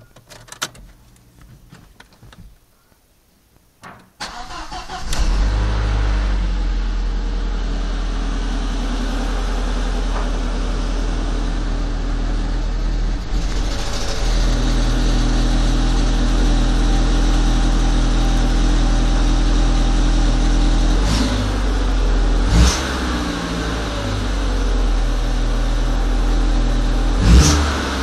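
Volkswagen Passat 1.8T turbocharged four-cylinder engine started from cold about four seconds in, after a few faint clicks, then running steadily. There are short sudden louder bursts near the end. This is the cold engine on which the owner hears a rattling, crunching noise, which he places near the turbo or combi valve, and which has a secondary air fault logged.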